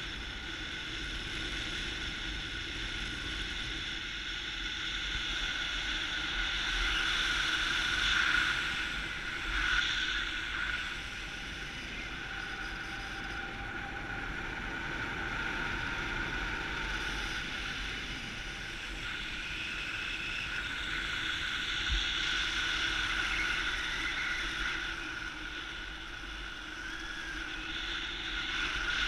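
Paramotor engine and propeller running steadily, with wind rushing past, the sound swelling briefly twice around eight and ten seconds in.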